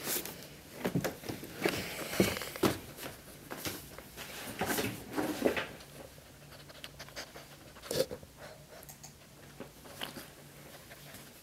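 Boston terrier breathing and sniffing close by in irregular short noisy bursts, mixed with sharp clicks, busiest in the first half.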